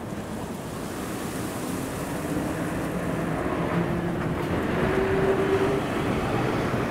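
City bus driving past close by, its engine and drivetrain note rising as it pulls away. It grows steadily louder and is loudest about five seconds in.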